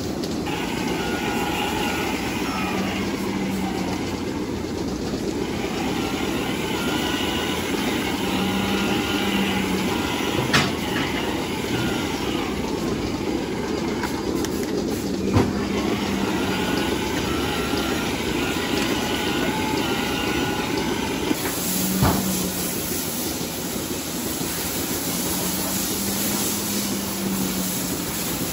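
Steady mechanical noise of milking-parlour machinery running, with a faint low tone recurring about every six seconds and a few sharp clicks. From about 21 seconds in, a hiss of water spraying from a hose joins it.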